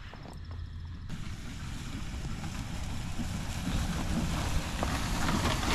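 Pickup truck driving across a grass field toward the microphone: its engine rumble and the rush of its tyres come in about a second in and grow steadily louder as it approaches.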